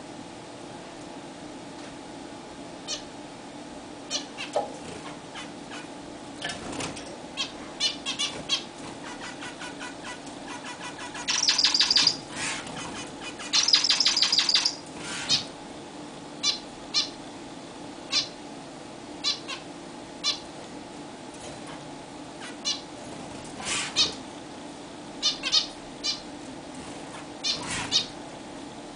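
Zebra finches giving short nasal calls every second or so. About 11 and 14 seconds in come two louder, roughly second-long bursts of rapid wing-fluttering.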